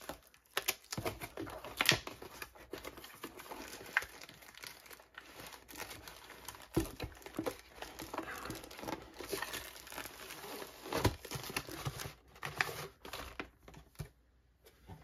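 Plastic shrink wrap crinkling and tearing as it is cut with scissors and pulled off a cardboard kit box, then the box opened and its plastic-wrapped contents handled, with scattered sharp clicks and taps. It quietens near the end.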